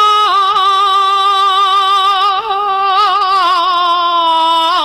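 Cantonese opera singer holding one long, sustained note with a steady vibrato, drawing out the last syllable of a sung line.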